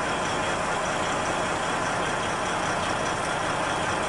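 Big truck's diesel engine idling steadily, just after starting, while the alternator recharges the batteries.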